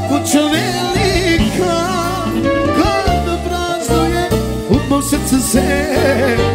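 A live Balkan folk-pop band: a male singer on a microphone sings an ornamented, wavering melody over accordion and clarinet, with a steady bass line and beat.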